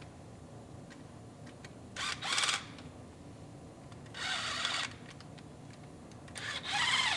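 A handheld power tool running in the water pump bolts in three short bursts, about two, four and six and a half seconds in.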